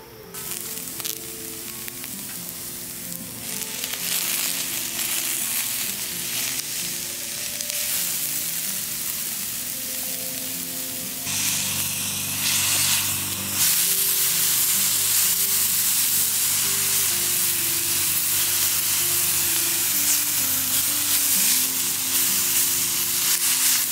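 Strands of black staining polypore mushroom and onions sizzling in butter in a cast-iron skillet, stirred with a wooden spatula; the sizzle starts just after the opening and gets louder about a dozen seconds in. Background music plays underneath.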